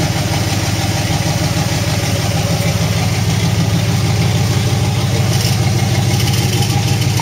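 1977 Chevy Suburban's built 400 cubic-inch small-block V8 running steadily at low revs as the truck crawls slowly over a dirt trail, getting slightly louder toward the end.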